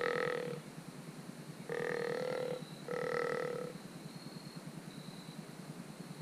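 Deer grunting: three short, steady-pitched grunts in quick succession, each under a second long.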